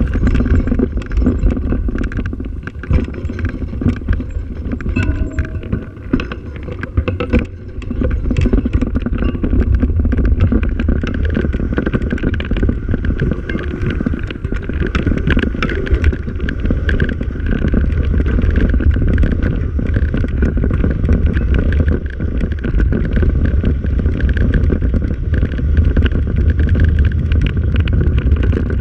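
A vehicle riding over a rough dirt track: a steady low rumble with many small rattles and knocks from bumps, and wind on the microphone. A thin steady whine sits above the rumble in the second half.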